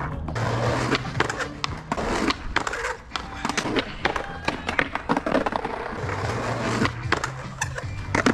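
Skateboard wheels rolling on asphalt, with repeated sharp clacks and knocks as the board pops and grinds across a concrete ledge. Music plays underneath.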